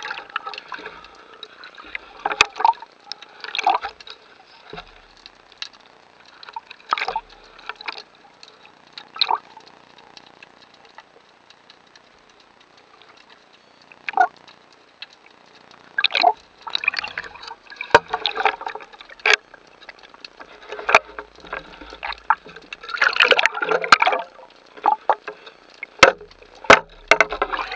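Irregular bursts of bubbling, gurgling water every second or few, with a quieter spell in the middle and a few sharp clicks.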